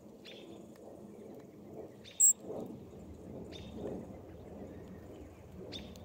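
Four short, sharp high ticks from a dark-eyed junco feeding at a pile of birdseed, the loudest about two seconds in, over a steady low rumble.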